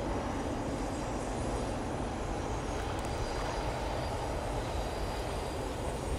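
Steady low rumble and hiss, with a faint even hum in it, under faint splashing of a hooked bass thrashing at the surface near the middle.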